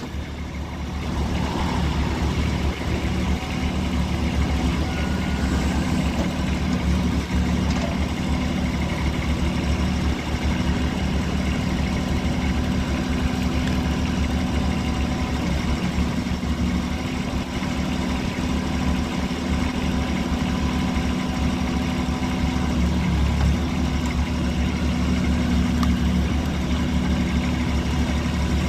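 Kubota B21 tractor loader backhoe's 19 HP Kubota diesel engine idling steadily.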